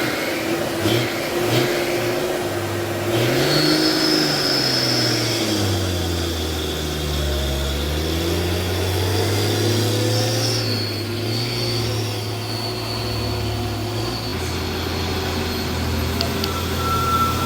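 Heavy truck's diesel engine labouring up a steep climb. Its note rises and falls in the first few seconds, then settles into a lower, steady pull, with a thin high whine above it.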